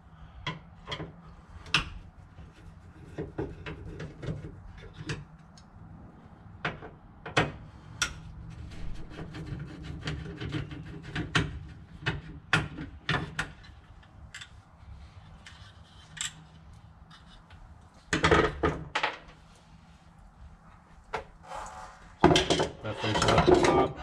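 Phillips screwdriver working screws out of a seat-belt bracket on a car's door pillar: irregular small metallic clicks and scraping of the tool in the screw heads. Louder handling clatter comes in twice near the end.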